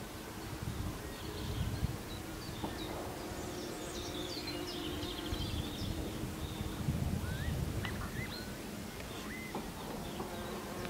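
Countryside ambience: small birds chirping, busiest in the middle, with a few short rising whistles later on. Underneath runs a steady low hum, and a low rumble swells twice.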